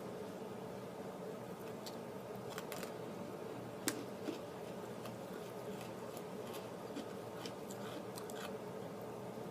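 Someone chewing an Oreo cookie with popping candy in the filling: scattered small clicks and crackles over a steady background hum, with one sharper click about four seconds in.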